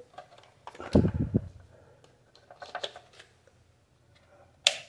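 Knocks and clicks of a power plug being handled and pushed into a voltage stabilizer about a second in, then scattered small clicks and one sharp click near the end as the unit's switch is pressed.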